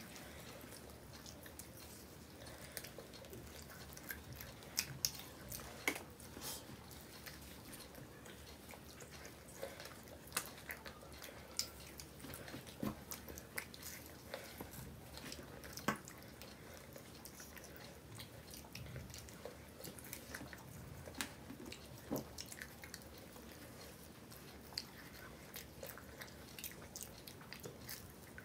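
Two people eating close to the microphone: chewing and biting on pizza and ice cream, with irregular wet mouth clicks and smacks.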